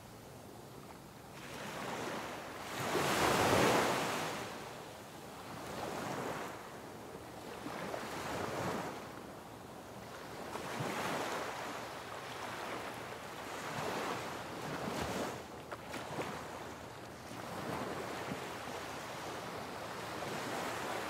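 Small waves washing in over a shallow sand beach, the rush of water swelling and fading every few seconds, loudest about three seconds in, with some wind on the microphone.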